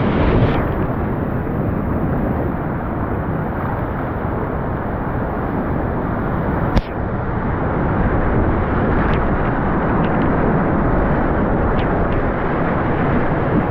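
Loud, steady rushing roar of fast whitewater on the Huka Falls run, with a short sharp click about halfway through.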